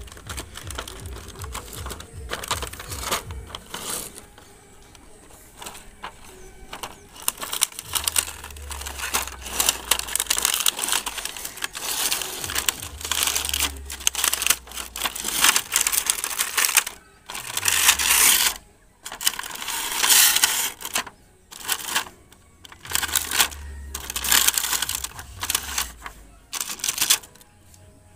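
A cardboard toy box and its clear plastic blister tray being handled and opened: irregular bursts of crinkling and rustling, with scattered clicks and taps.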